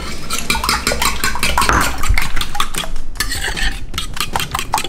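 Fork whisking a milk-and-egg mixture in a bowl, clinking rapidly against the bowl's sides several times a second.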